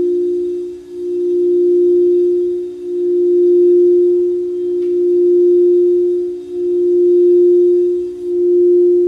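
Crystal singing bowl sung by circling a wand around its rim: one steady tone whose loudness swells and dips about every two seconds.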